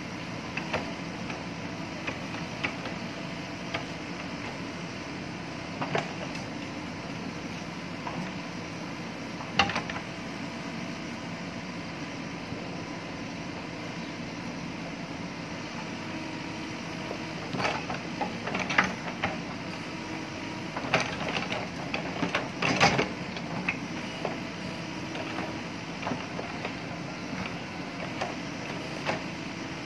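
Mahindra backhoe loader's diesel engine running steadily as the backhoe arm digs and scrapes loose soil. Sharp knocks and clanks from the bucket and arm come now and then, bunched together about two-thirds of the way through.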